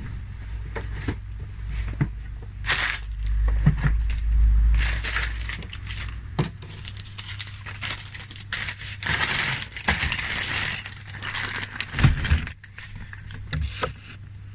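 Cardboard toy boxes and loose plastic toy parts being handled: rustling and crinkling with scattered small clicks and knocks. There is a low rumble a few seconds in, and a steady low hum underneath.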